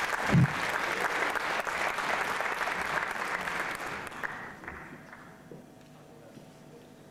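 Audience applauding in a hall, with a single low thump just after the start; the clapping dies away about four to five seconds in.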